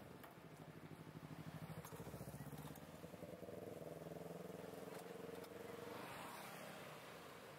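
A motor vehicle's engine heard faintly from the street, its note rising slightly, holding for a few seconds, then dropping away about six seconds in.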